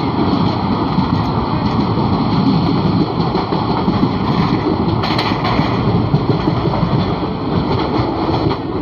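Steady rushing and rumbling of an express passenger train running at speed, heard from an open coach door with wind buffeting the microphone. A brief high-pitched sound stands out about five seconds in.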